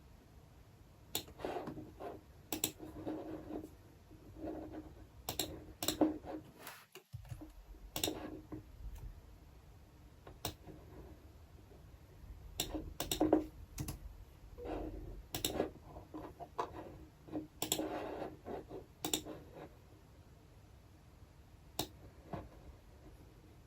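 Computer keyboard typing and clicking: irregular keystrokes and clicks in short clusters with pauses between them, over faint room noise.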